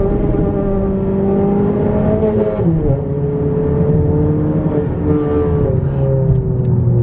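Straight-piped turbocharged four-cylinder of a 10th-gen Honda Accord under acceleration, its exhaust note climbing in pitch and then dropping sharply just under three seconds in, as at a gear change, before running on lower and steadier.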